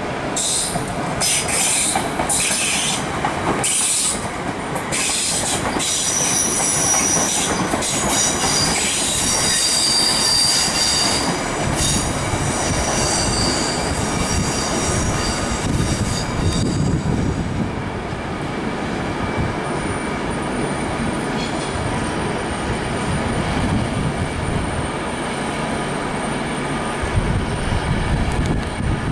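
Electric multiple unit running slowly over the pointwork, its wheels squealing on the curves in several high, shifting tones for about the first half, then a steady rumble of wheels on rail.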